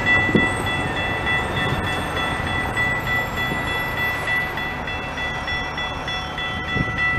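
Railroad grade-crossing warning bell ringing steadily as the crossing gates lower, with road traffic rumbling past.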